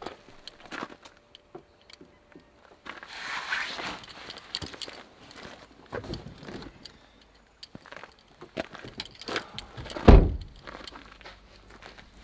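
Hiking gear being handled at an open car door: scattered clicks, knocks and rustles, with one heavy thump near the end.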